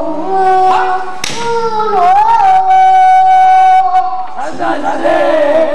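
A young girl singing pansori solo, her voice gliding between pitches and then holding one long wavering note for about two seconds in the middle. A single sharp knock sounds about a second in.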